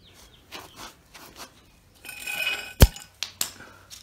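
Hard objects clinking and knocking, as when pieces are handled on a bench: a few light clicks, a ringing scrape about two seconds in, then one loud sharp knock just before the three-second mark, followed by a couple of lighter clicks.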